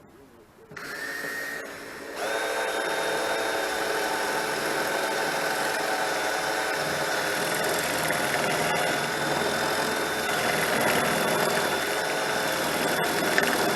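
Electric drill with a spot-weld cutter drilling out a spot weld in car-body sheet steel. It runs briefly about a second in, then bites and runs steadily with a high whine, with a few clicks near the end.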